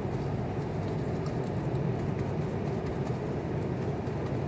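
A steady low mechanical hum and rumble that does not change.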